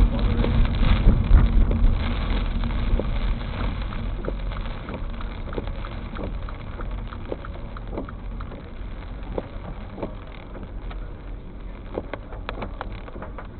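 A vehicle moving through floodwater, its engine and the rush of water loud at first and fading steadily as it moves away, with scattered small splashes or drips.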